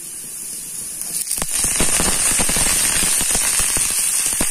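Oil sizzling softly in a frying pan with chopped garlic, ginger and green chilli. About a second and a half in, shredded cabbage is tipped into the hot oil and the sizzle jumps much louder, with dense crackling.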